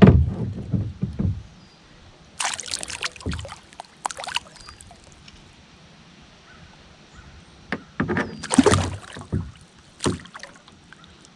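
Handling noise in a kayak while a hooked largemouth bass is landed: a heavy bump right at the start, then separate bursts of knocking and water noise at about two and a half seconds, four seconds, eight to nine seconds and ten seconds.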